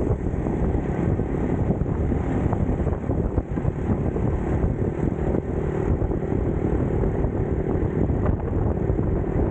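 Steady wind rumble on the microphone with road noise, as from a camera moving along on a ride.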